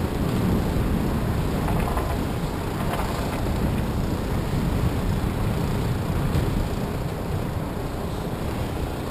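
Wind buffeting the microphone of the camera on an RC plane stuck in a treetop: a steady low rumble with no motor running.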